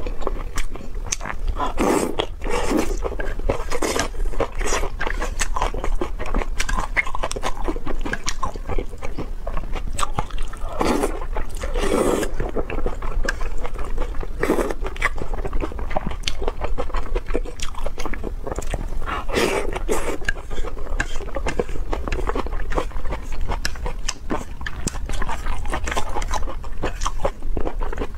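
Close-miked eating of spicy noodles in a soupy red sauce: wet slurping and chewing with many small mouth clicks, and several louder slurps scattered through.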